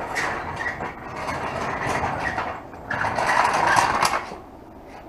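Metal rattling and scraping in two stretches, one of about two and a half seconds and then one of just over a second, as a heavy motorcycle part is pushed and shifted.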